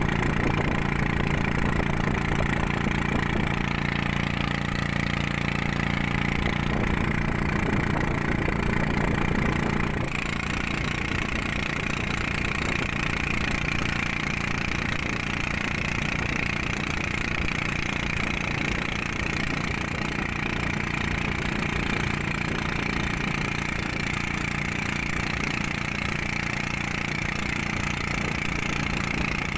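Small motor boat's engine running steadily under way, with a continuous drone; about ten seconds in its note shifts, the low hum dropping and a higher whine coming up.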